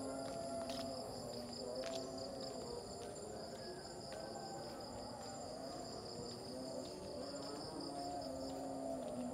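Insects trilling steadily, a high pulsing buzz with thinner, higher tones above it. A fainter, lower sound changes pitch in steps underneath, and a few soft ticks come through.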